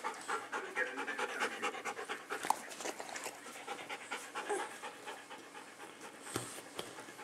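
A Belgian Tervuren shepherd dog panting rhythmically with its mouth open.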